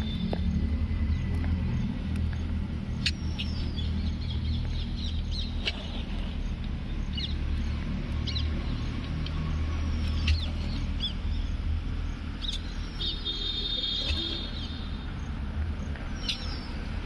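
Strutting Bronze turkey toms drumming: a deep, steady low hum that swells and eases. Small birds chirp faintly over it in short high calls.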